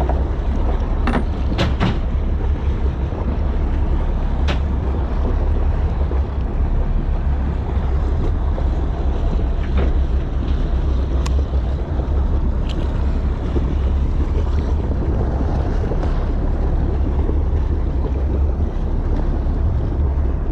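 Wind buffeting the microphone on a boat at sea: a steady low rumble under a wash of open-water noise, with a few sharp clicks of handling the rod, reel and tackle.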